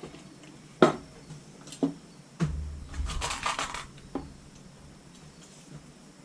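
Metal clinks and knocks of steel wire spokes being worked into a motorcycle wheel's hub and rim: a few separate sharp clicks, then a quick cluster of rattling clinks in the middle.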